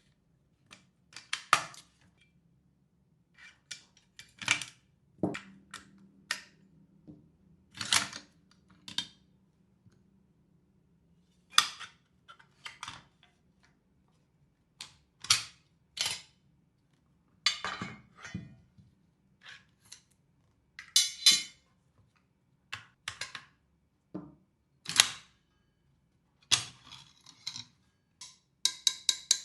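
Sharp metallic clicks and clacks of GHK gas-blowback AK airsoft rifles being handled or cycled, coming one or two at a time at irregular intervals. Near the end comes a quick, even run of ringing clicks.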